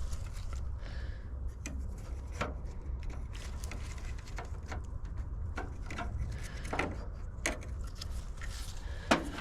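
Scattered light clicks and taps from hand work on the truck's trim, over a low steady hum.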